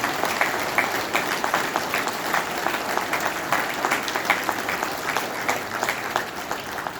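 An audience applauding steadily in a large hall, fading out just after the end.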